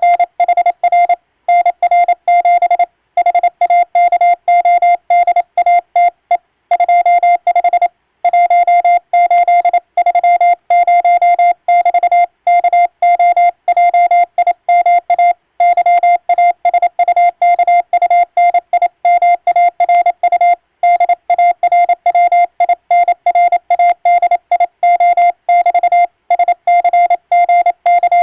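Morse code sent on an electronic keyer: a single steady beep keyed on and off in rapid dots and dashes, with brief pauses between words, spelling out an English-language radiotelegram.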